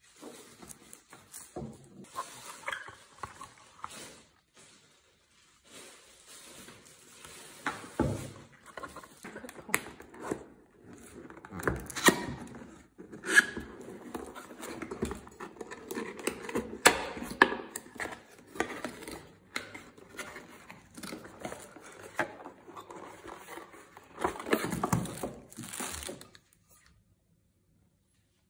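Unboxing handling: plastic packaging bags crinkling and rustling and cardboard boxes being opened and handled, with scattered sharp clicks and knocks.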